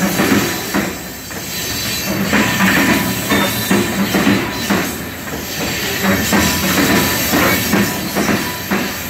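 Covered hopper cars of a freight train rolling past at steady speed, their steel wheels clacking repeatedly over the rail joints.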